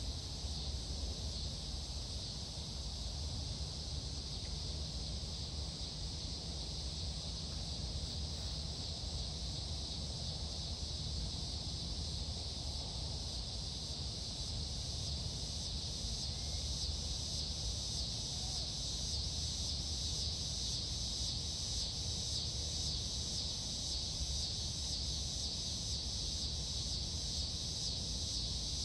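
Steady, high-pitched insect chorus with an even, fast pulse, over a low steady rumble.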